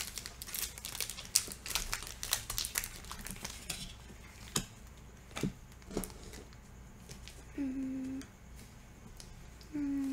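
Foil wrapper of a Panini trading card pack crinkling and tearing as it is peeled open: dense crackling for the first four seconds, then a few separate crinkles. Twice in the second half, a short steady hum of a voice.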